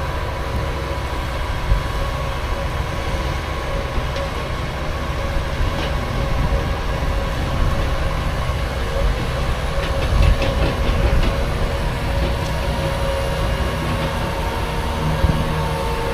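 Heavy farm machinery running steadily under load during corn silage harvesting: a deep engine rumble with a steady whine over it, and a few rattles about ten seconds in.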